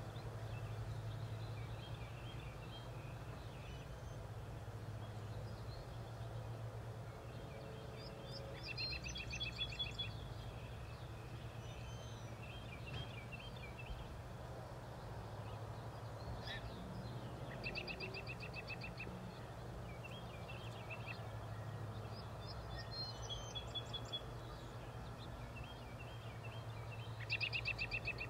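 Songbirds singing outdoors: one bird repeats a short, rapid trill about every eight to nine seconds, with scattered short chirps from others in between. A steady low hum runs underneath.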